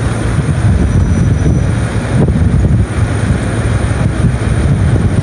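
Wind buffeting a phone's microphone outdoors: a loud, uneven low rumble.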